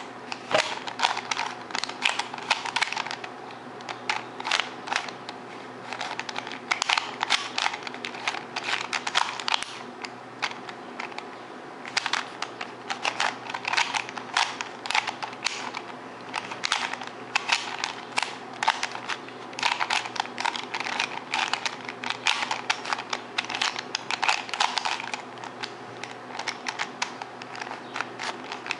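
Plastic Rubik's cube being turned fast by hand during a speed solve: rapid runs of clicking and clacking as the layers snap round, in bursts with brief pauses between move sequences.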